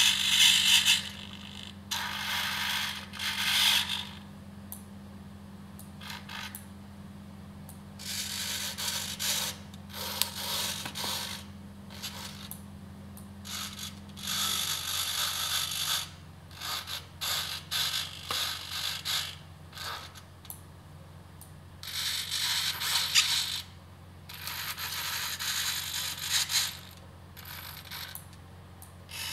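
Hobby servo motors in a 3D-printed InMoov robot arm whirring in repeated bursts of one to two seconds as they pull the finger tendons, with short pauses between moves. A steady low hum sits underneath.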